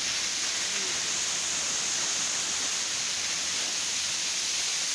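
Waterfall pouring into a plunge pool: a steady, even rush of falling water.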